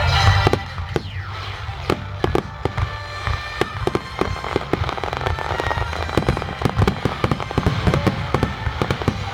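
Fireworks display: many sharp bangs and crackles, several a second. Music plays for the first half second, then cuts out.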